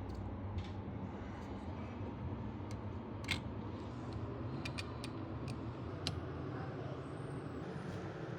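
Scattered light clicks and taps of small tools and parts as an iPhone XS logic board is fitted back into its housing, over a steady low hum.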